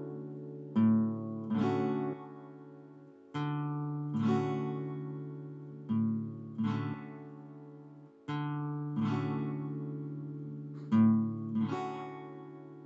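Acoustic guitar music: strummed chords, struck in pairs every couple of seconds and left to ring out and fade.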